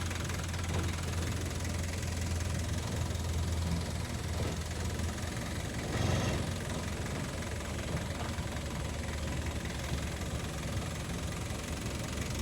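A vehicle engine running steadily with a low hum under a wash of road and wind noise. About six seconds in there is a brief louder rush.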